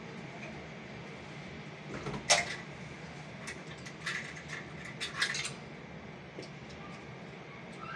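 A handful of sharp clinks and knocks, the loudest about two seconds in and the rest scattered over the next three seconds, over a steady low background hum.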